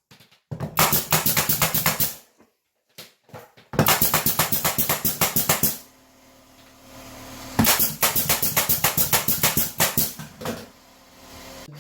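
A power tool fastening gypsum board, working in three bursts of about two seconds each, each one a rapid, even rattle of strokes.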